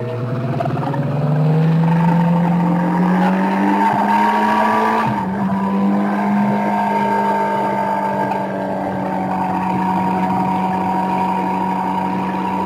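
Ducati 1299 Panigale's V-twin engine pulling on track: the note rises steadily for about five seconds, drops sharply about five seconds in, then holds nearly steady.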